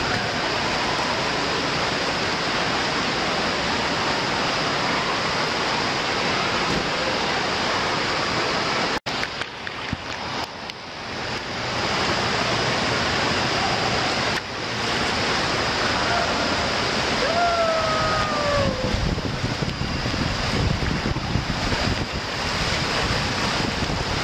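Water rushing and splashing under an inflatable tube sliding down a water slide, a steady loud rush with wind on the microphone. It drops out for an instant about nine seconds in, then the rushing resumes, and a rider gives a short falling cry about two-thirds of the way through.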